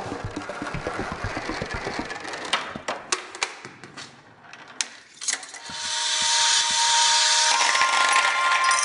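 Chain-reaction machine at work: a ball rattling along metal rails with scattered clicks and knocks, then a steady hiss with a whine that steps up in pitch near the end.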